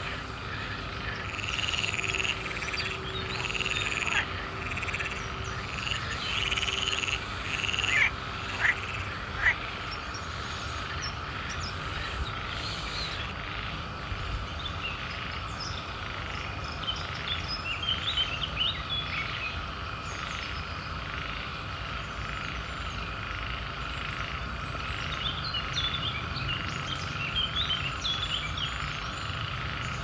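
Chorus of swamp frogs calling: a steady trilling hum under repeated croaking calls, with three sharp loud notes about eight to nine and a half seconds in and quicker chirping calls later on.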